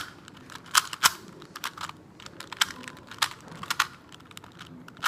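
Rubik's cube layers being twisted by hand, a string of irregular sharp plastic clicks.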